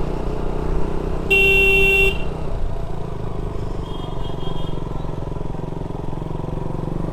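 Motorcycle engine running steadily while riding, with one loud horn honk of just under a second about a second in.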